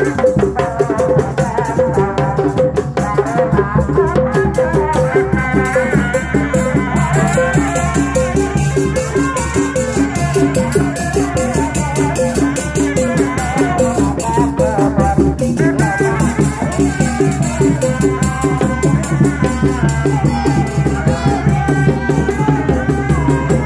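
A live Sundanese reak ensemble playing: a large frame-mounted drum beaten with padded mallets, with cymbals and a quick, steady percussion pattern under a wavering melody.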